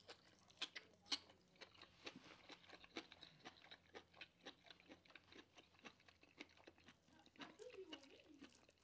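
Close-miked chewing of a mouthful of asparagus: a quiet, steady run of small crunches and wet mouth clicks, with a short hummed 'mm' near the end.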